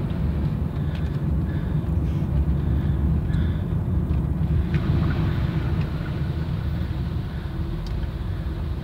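Vehicle's engine and tyres on a wet road heard from inside the cabin: a steady low rumble as it drives slowly.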